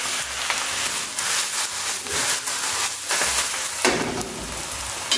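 Spinach and garlic sizzling in hot oil in a stainless steel sauté pan: a steady frying hiss with short ticks and knocks every half second or so.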